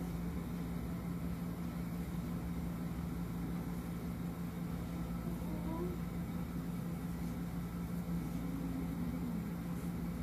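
Steady low hum over a constant background noise, unchanging throughout.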